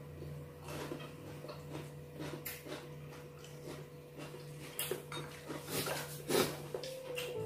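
Chopsticks clicking against plates and bowls as people pick at food and eat: a string of light, irregular clicks, a few louder near the end, over a steady low hum.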